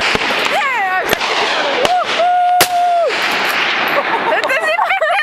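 Several gunshots in quick succession during a hunt, sharp cracks a second or less apart. Between them run long calls that glide up and down in pitch, one held for nearly a second in the middle.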